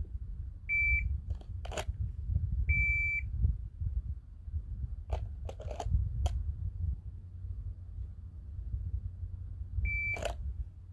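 Electronic shot timer giving three short beeps: two close together early on, and one near the end. A few sharp cracks come in between, and a low wind rumble runs underneath.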